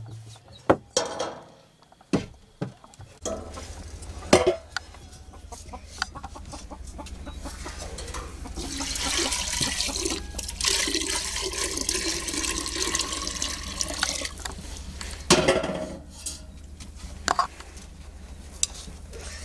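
Water poured from a large metal water vessel into a pot, splashing steadily for about six seconds midway. Metal pots and a lid knock and clank before and after.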